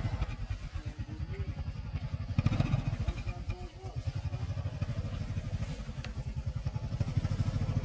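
Small motorbike engine running as the bike rides slowly, a steady rapid low putter with a brief easing of the throttle about halfway through.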